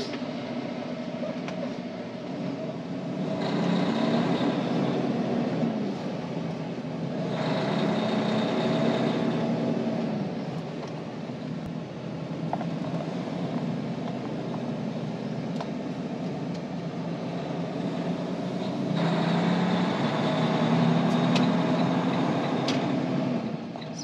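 Western Star semi-truck's diesel engine heard from inside the cab as the truck pulls away and drives. The engine note climbs and drops back three times, as it does when the engine revs up through the gears.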